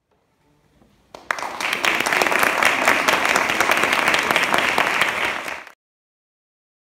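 Audience applauding after a performance, a dense, steady clapping that starts about a second in and cuts off abruptly near the end.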